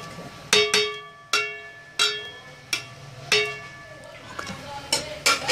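Metal strainer and ladle clinking against the rim of a metal cooking pot as half-boiled rice is tapped off into it: about eight sharp metallic knocks, each ringing briefly.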